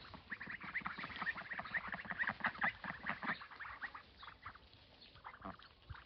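A flock of ducks calling to each other in quick, short, soft quacks, a dense chatter that thins out about three and a half seconds in.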